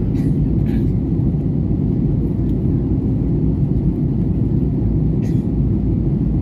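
Steady low rumble of a jet airliner's engines and rushing air, heard from inside the passenger cabin during the descent to land.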